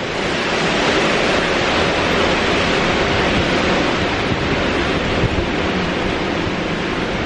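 Hurricane wind and heavy rain blowing steadily, with the gusts buffeting the microphone in a low rumble.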